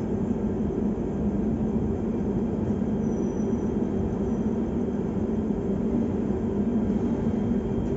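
Steady low rumble and hum of a train, heard from inside an air-conditioned sleeper coach through a closed window.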